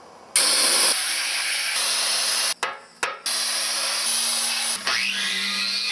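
Sandblaster blasting a cast iron stove casting: a loud, steady hiss of air and grit that cuts out briefly about halfway and then resumes. Near the end a rising whine joins the hiss.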